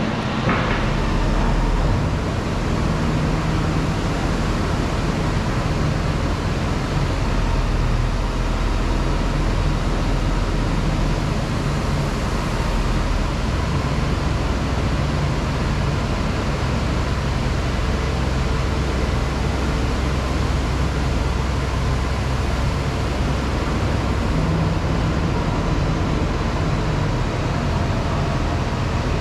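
A vehicle engine running steadily under a constant rush of noise, its low tone drifting slightly up and down.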